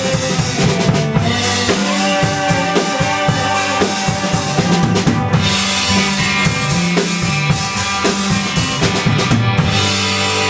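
A band playing live, with a busy drum kit of bass drum, snare and rimshots over sustained pitched instruments.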